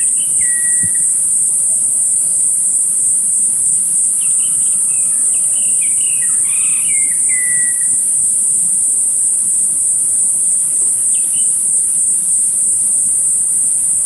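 A steady, high-pitched drone of insects, with short whistled and chirping bird calls near the start, a run of them in the middle, and one more later on.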